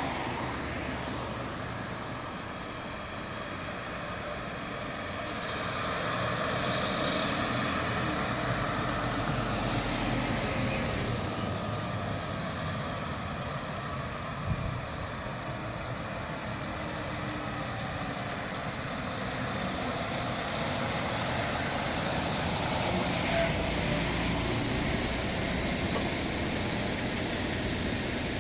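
Heavy truck's diesel engine and a multi-axle low-loader trailer passing slowly at close range, with engine and tyre rumble growing louder as the rig draws near. There is a brief sharp sound about halfway through, and a few more short ones later.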